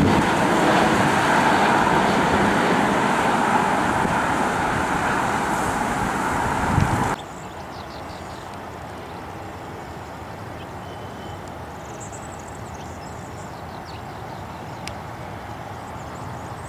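Bombardier Global Express business jet on low final approach: its twin turbofan engines make a loud, steady jet roar. About seven seconds in it cuts off abruptly, leaving a much quieter steady hum with a few faint high chirps.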